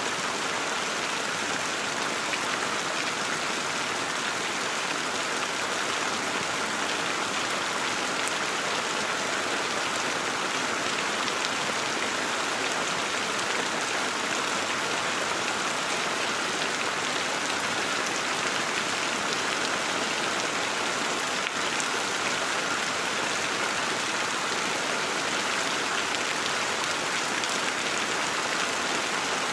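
Heavy rain falling steadily on broad leaves and wet ground: a dense, even hiss of drops that doesn't let up.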